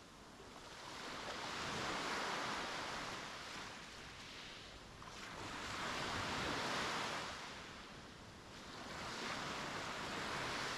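Sea waves breaking and washing up the beach. Three swells of surf, each rising and falling away, about four seconds apart.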